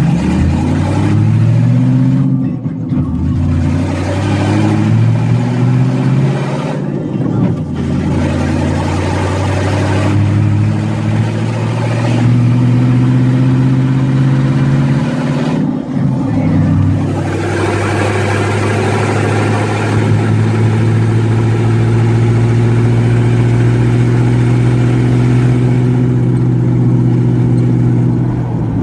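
Jeep engine running loud through open headers while driving: the revs climb and drop back at gear changes three times, then hold steady at cruise.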